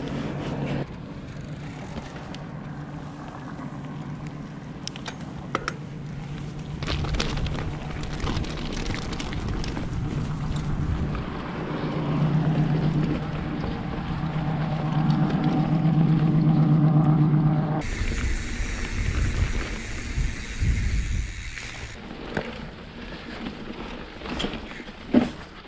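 Mountain bike ride heard from the bike: a steady humming drone that slowly grows louder, then, about eighteen seconds in, an abrupt change to a loud rush of wind on the microphone, followed by scattered rattles and clicks and a sharp knock near the end.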